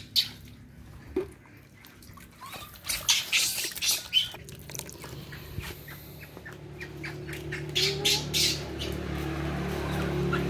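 Baby macaques screeching in short, shrill bursts, in a couple of clusters, as they protest being bathed. A steady low hum builds underneath from about halfway.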